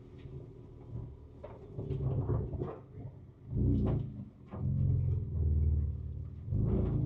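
Ford Ranger Raptor's twin-turbo V6 heard from inside the cabin, pulling at low speed with the engine note swelling in several bursts of throttle. Short knocks and rattles from the truck bumping over a rough trail come through between them.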